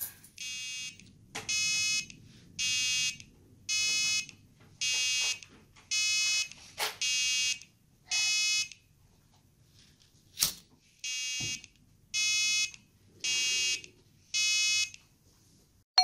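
A micro:bit fire alarm beeping: a buzzy electronic tone about half a second long repeats roughly once a second, with a short break about two thirds of the way through. It has been triggered by a flame sensor detecting a lighter's flame. A couple of sharp clicks sound between the beeps.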